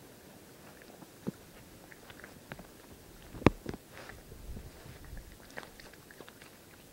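Raccoon chewing food close to the microphone: irregular wet, crunchy clicks of its jaws, with one sharp, much louder click about three and a half seconds in.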